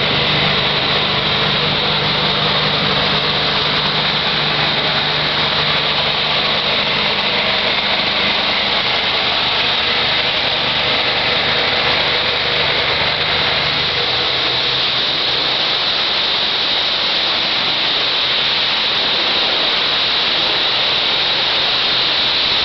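Pressure washer running: a steady engine hum under a loud, even hiss of the high-pressure spray. The engine hum fades out over the middle of the stretch while the spray hiss carries on.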